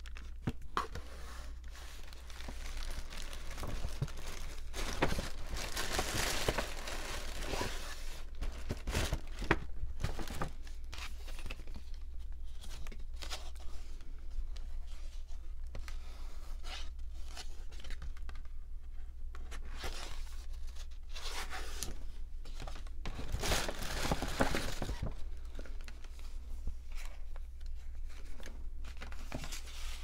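Paper rustling and crinkling as a paper jewelry bag and a printed card are handled, in irregular swells with scattered sharp clicks and taps. A steady low hum runs underneath.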